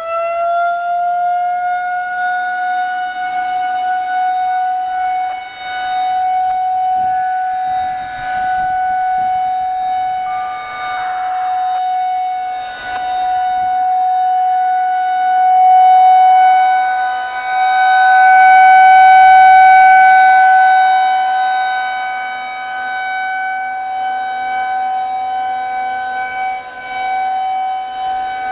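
Federal Signal 2001-130 rotating outdoor warning siren sounding one steady tone at full speed during a test. Its loudness swells and fades as the rotating horn sweeps past, loudest about two-thirds of the way through.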